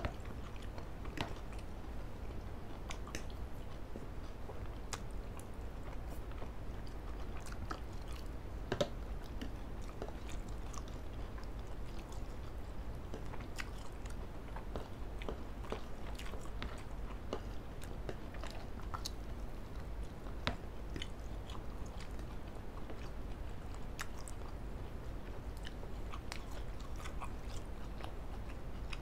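Two people chewing mouthfuls of spicy fried instant noodles and grilled chicken close to the microphone, with many scattered small clicks from mouths and forks. A low steady hum runs underneath.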